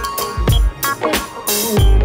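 Background music with a steady drum beat and deep bass notes.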